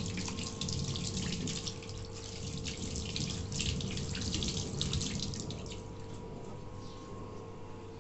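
Tap water running into a stainless steel sink, splashing as hands rub and rinse mangoes under the stream. The splashing fades about six seconds in.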